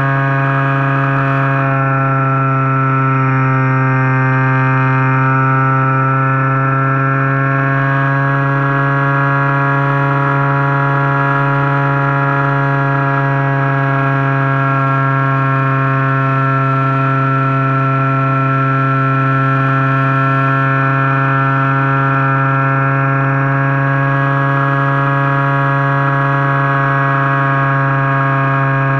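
Electric model plane's Turnigy G10 brushless outrunner motor spinning a 10x6 propeller at steady cruise power, recorded from a camera on the airframe: a loud, steady buzzing drone whose pitch sags slightly a few seconds in and then holds.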